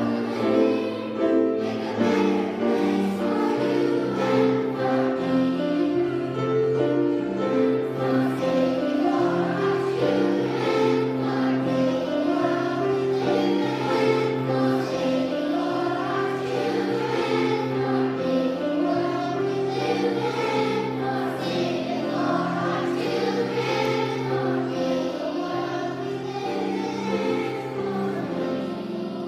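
Large children's choir singing in unison over sustained low accompaniment notes, the sound starting to die away near the end.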